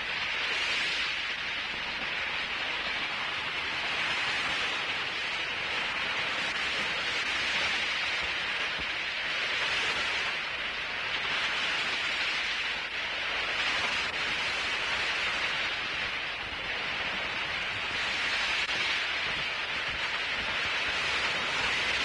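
Sea surf washing, a steady rushing that swells and eases every few seconds, on an old optical film soundtrack.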